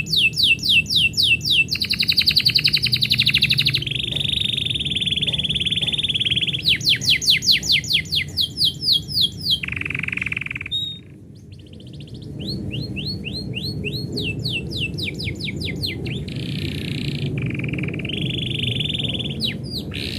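Domestic canary singing: fast runs of repeated down-sweeping notes alternating with steady trills, with a short lull a little past halfway before the song resumes.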